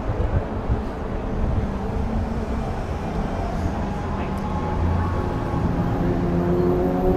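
Street traffic rumbling steadily, with one vehicle's engine hum growing louder over the last few seconds as it approaches.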